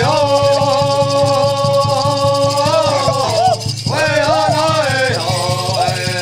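Hopi men's chorus singing a corn dance song in unison, holding long notes, over a steady beat on a hand drum with shaken rattles.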